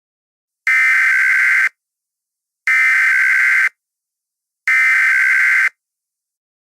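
Emergency Alert System SAME header: three bursts of screechy digital data tone, each about a second long with a second of silence between, the coded header that opens an EAS alert.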